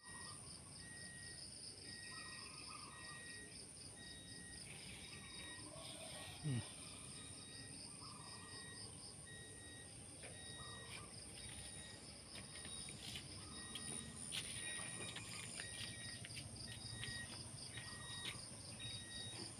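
Night insects and crickets calling in a steady chorus: a constant high buzz, a fast pulsing chirp and evenly repeated trills, with lower calls every couple of seconds. A brief downward-sliding call stands out about six and a half seconds in, and scattered clicks and rustles come in the second half.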